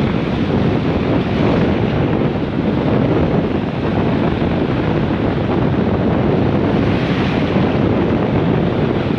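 Steady wind buffeting the microphone over the wash of surf on the beach.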